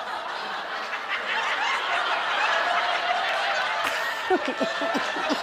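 A studio audience laughing, swelling up in the first second and carrying on steadily, with a few separate laughs standing out near the end.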